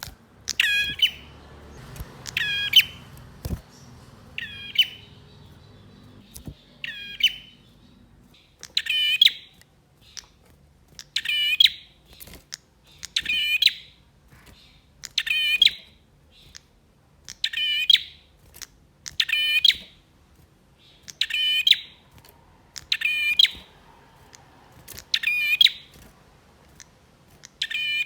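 Male prinia (prenjak) singing a short, quickly warbled phrase over and over, about one every two seconds, louder from about nine seconds in.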